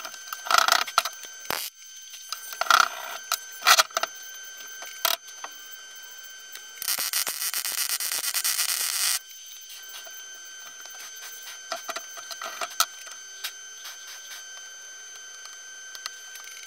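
MIG welder running a weld on a steel reinforcement plate of a BMW E36 front subframe: one dense, noisy burst lasting about two and a half seconds near the middle. Before it come several short, sharp knocks and clatters, with a steady high whine underneath.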